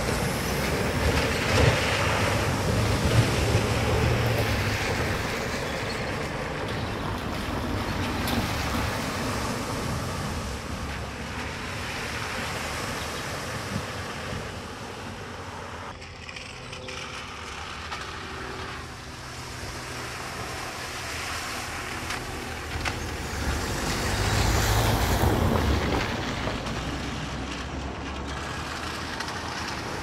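Vehicles crossing a shallow flooded ford in turn, each engine running under the rush of wet tyres and splashing water. A light truck passes close by first, the loudest moment. A van coming through the water is loud again about three-quarters of the way through.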